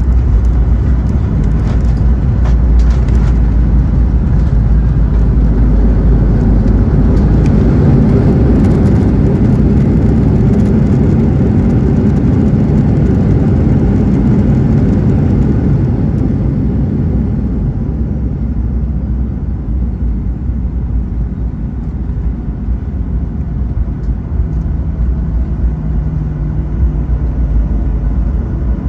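Cabin noise of a Boeing 737-900 on its landing rollout: a loud, steady rumble from the CFM56-7B engines and the wheels on the runway, heaviest in the first half and easing after about sixteen seconds as the jet slows with its spoilers up.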